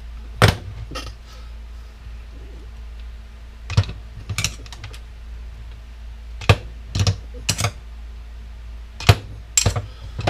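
Sharp clacks and knocks of hard parts from a dismantled power washer being handled and dropped, in small clusters of two or three, over a steady low hum.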